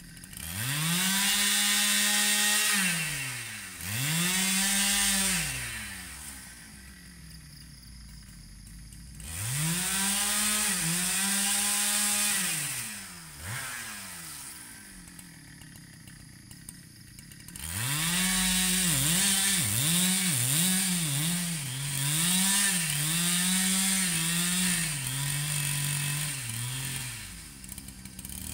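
Husqvarna 395 two-stroke chainsaw run up to full throttle in four bursts while cutting rubberwood logs, falling back to idle between them. In the last and longest burst the engine speed dips and recovers over and over.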